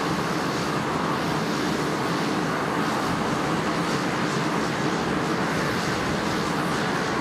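Twin Pratt & Whitney PT6A turboprop engines and propellers of a Cessna SkyCourier running steadily while the aircraft taxis: an even rushing noise with no change in level.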